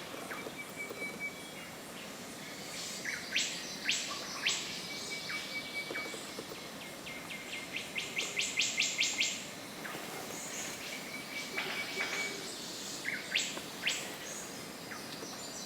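Rainforest birds calling at dawn: scattered sharp, high notes, a quick run of repeated notes about halfway through, and a few short, thin whistles.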